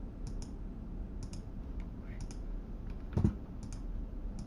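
Light clicking at a computer, mostly in quick pairs about once a second, with one louder knock a little past three seconds.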